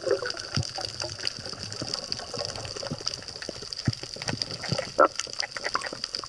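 Underwater ambience heard through a camera housing: a steady crackle of small faint clicks over a high hiss, with one brief louder gurgle about five seconds in.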